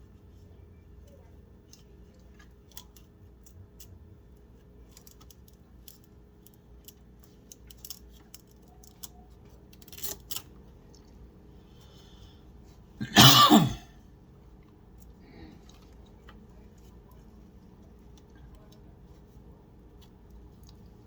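Light plastic clicks and rattles as PC cables and zip ties are handled and pulled tight. About thirteen seconds in, a person gives one loud cough, the loudest sound here.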